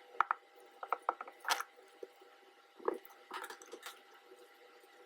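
Paper and glue-stick handling: a scatter of short taps, clicks and rustles as book-page sheets are glued and pressed down onto cards, over a faint steady hum.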